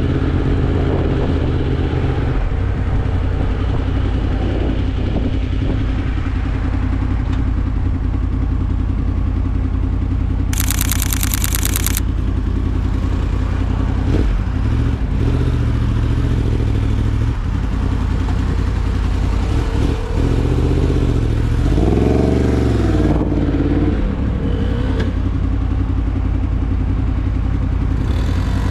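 Yamaha MT-10's crossplane inline-four engine running steadily while the bike is ridden, heard from the rider's position. About ten seconds in there is a short burst of hiss lasting about a second and a half. Around twenty seconds in the revs rise and fall once.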